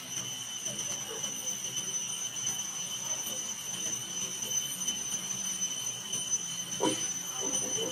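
Steady, high-pitched insect drone, with a short lower-pitched sound about seven seconds in.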